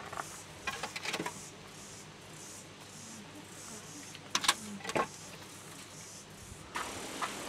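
Dry firewood branches knocking together as they are stacked inside a clay bread oven: a few sharp knocks about a second in and again at about four and a half to five seconds.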